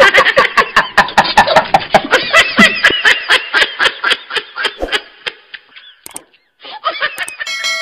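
Long run of rhythmic laughter, a quick even 'ha-ha-ha' of about four or five laughs a second that fades away over about six seconds. Near the end comes a click, then a bright bell-like ding that starts to ring.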